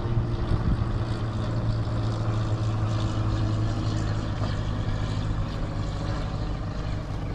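Boat motor running with a steady, unchanging low hum.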